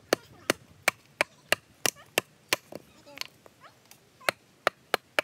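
A blade chopping wood into kindling: a steady run of sharp strikes, about three a second, with a brief pause near the end.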